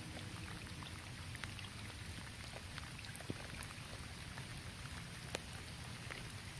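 Light rain falling on a roof: a steady hiss of rain with many scattered drops ticking, two of them sharper, about three and five seconds in.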